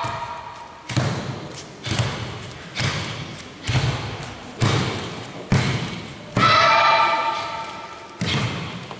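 Children performing a Shotokan karate kata in unison: sharp thuds of their techniques, gi snapping and feet stamping on foam mats, about one a second, each ringing out in the hall. A long, high kiai shout comes a little past the middle.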